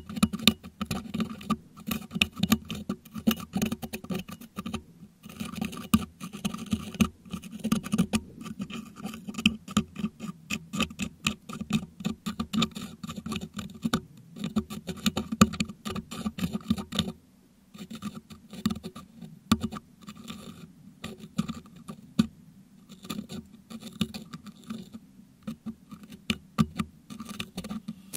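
Metal dental hook scraping and picking crushed meringue out of a Blue Yeti microphone's metal grille, picked up by that microphone: a dense run of small scratches and crackly clicks, with a short pause a little past the middle.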